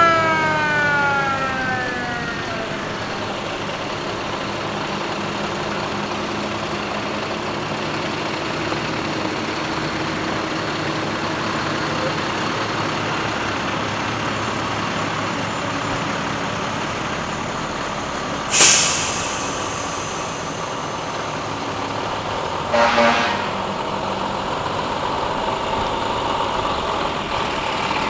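A fire truck's siren winding down and fading in the first couple of seconds, then the truck's engine idling steadily. About two-thirds of the way through, a sudden loud hiss of air brakes, and a few seconds later a short horn blast.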